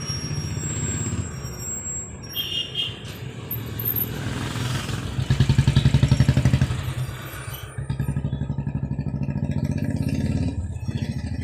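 Old Royal Enfield Bullet 350's single-cylinder engine running with an even thumping beat while it turns the raised rear wheel, to bring out the noise that the rear brake drum makes as the wheel spins. It is loudest about halfway through.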